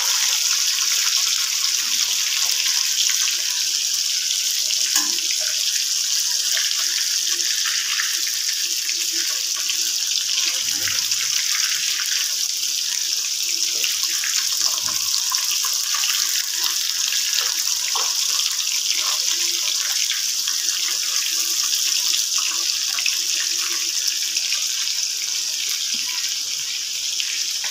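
Whole fish shallow-frying in hot oil in a steel kadai, a steady sizzling hiss with faint scattered pops and spits.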